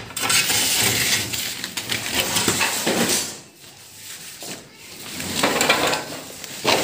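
Rustling and handling noise, loudest in the first three seconds, then quieter with a few short clattery bursts and a sharp sound near the end.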